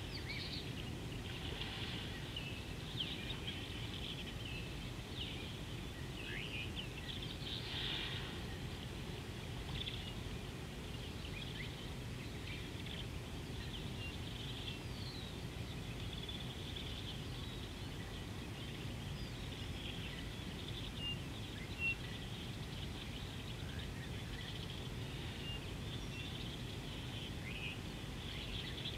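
Birds chirping and calling off and on, in short high notes, over a steady low rumble of outdoor background noise.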